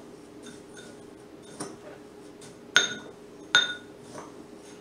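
A spoon stirring dry seasoned panko breadcrumbs in a ceramic bowl, clinking against the bowl's side a few times; the two loudest clinks ring briefly and come close together about three seconds in.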